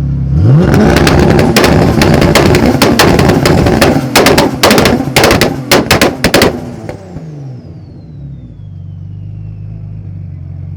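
Turbocharged BMW M52B28 straight-six with a straight-pipe exhaust revving hard, crackling with a rapid string of loud exhaust pops and bangs that come thickest as the rev ends. The turbo whistle then falls in pitch as it spools down, and the engine settles back to idle.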